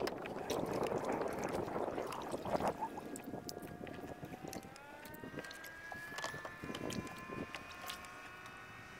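Water splashing and sloshing around a fishing kayak during a fight with a hooked catfish for the first couple of seconds, then a steady motor-like whine that rises slowly in pitch and levels off, with scattered light clicks.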